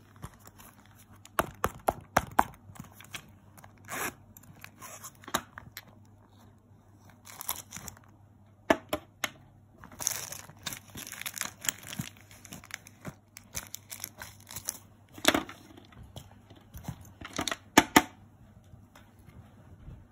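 Small plastic packets crinkling and small containers clicking as a zippered makeup pouch is rummaged through, in scattered bursts with a denser stretch of rustling about halfway through and a few sharp clicks near the end.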